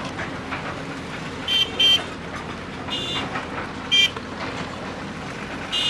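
Vehicle horns honking in short toots, about four separate toots and a quick run of them near the end, over steady street noise.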